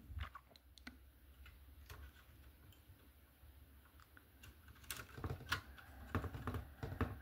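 Faint, scattered light clicks and taps of a plastic model car hood being set onto the body and pressed into place by hand, coming more often in the second half.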